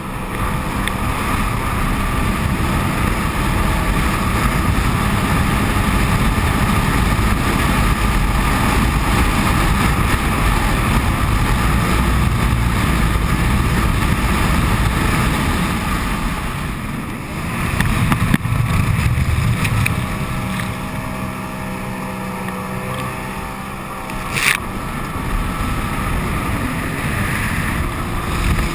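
255-horsepower jet ski running at speed, its engine and water jet sounding steadily with water rushing past and wind buffeting the microphone. The engine eases off about two-thirds of the way through and runs lower for the rest, with one sharp click.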